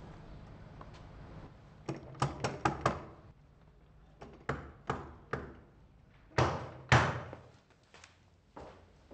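Knocking on a heavy wooden door: a quick run of about five knocks, then four lighter knocks, then two loud heavy thuds against the door.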